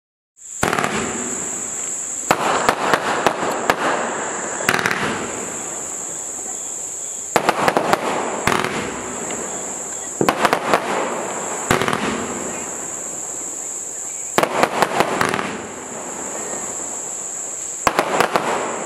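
Evolution Fireworks PF-16 Blushing Crossettes cake firing, starting about half a second in: volleys of comets launch and break apart with clusters of sharp cracks as they split into crossettes, a new cluster every two to three seconds with a steady hiss between them. A steady high tone runs behind throughout.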